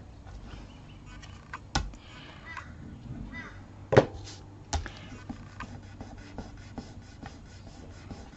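Craft paper and tools handled on a work table: three sharp knocks, the loudest about four seconds in, among lighter taps and paper rustling, over a steady low hum.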